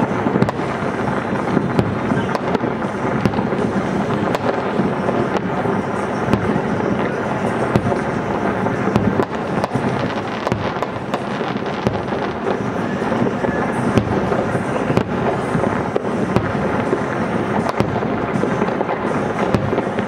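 Aerial firework shells bursting in a continuous barrage: a dense, unbroken run of booms and sharp cracks with no pause.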